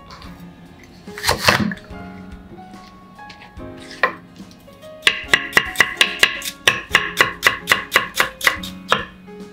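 Chef's knife cutting napa cabbage on a wooden cutting board: a couple of single cuts, then, from about five seconds in, rapid julienne slicing at about four strokes a second, each stroke knocking on the board.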